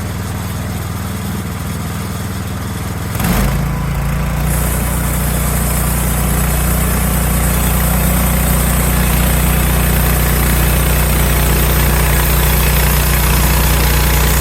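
An engine running steadily, then stepping up in speed and loudness about three seconds in and holding at the higher speed.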